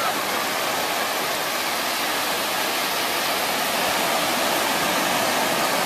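Steady hiss of ocean surf washing on the beach, even and unbroken.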